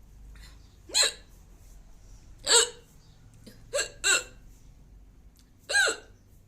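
A woman hiccuping five times at uneven intervals, each hiccup a short, sharp voiced squeak, with two coming close together about midway.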